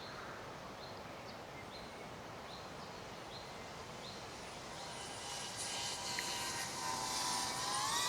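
DJI Avata 2 FPV drone's propellers whining as it flies in, growing louder over the last few seconds, with the pitch rising near the end. Before it, a quiet outdoor background with short high chirps about once a second.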